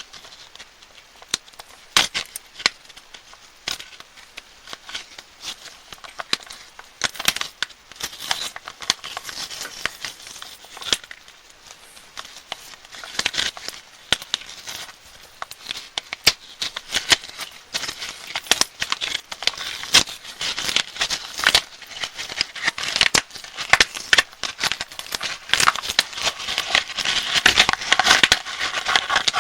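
Candy wrappers being crinkled and unwrapped by hand, a dense run of sharp crackles and snaps that grows busier and louder near the end.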